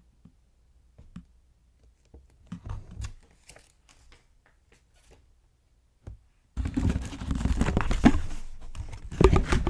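Packaging being handled during an unboxing: a few light rustles and clicks, then from about six and a half seconds in a loud, continuous crinkling and rustling.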